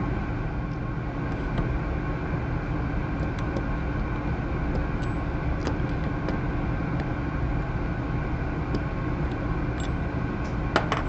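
A steady low hum runs throughout, with a few light clicks. A sharper click near the end is the loudest moment, as a small hand tool works the nuts off the radio's knob shafts.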